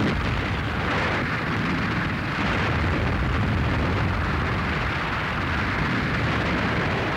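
Steady, dense rumble of army trucks driving through deep mud, growing a little louder a couple of seconds in.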